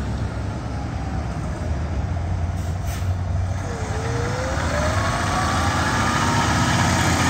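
A fire engine's diesel engine running as the truck drives closer, growing slowly louder, with a whine that rises steadily in pitch from about four seconds in as it picks up speed.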